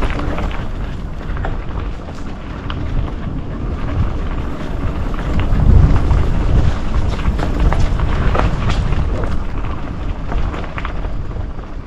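Mountain bike rolling over a dirt trail: a continuous low rumble of wind on the microphone and tyres, with frequent clicks and rattles from the bike.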